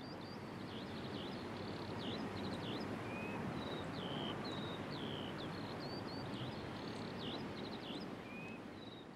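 Several small birds chirping in quick short calls and slurred whistles over a steady outdoor hiss. The ambience swells in and fades away again.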